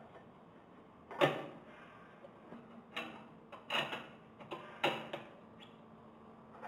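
Parts of a GEA Hilge CONTRA Bloc multistage pump being fitted by hand: a cover disc and a metal end plate clicking and knocking as they are pushed onto the stainless-steel stage casings. Six or so sharp knocks, the loudest about a second in and the rest coming close together in the middle.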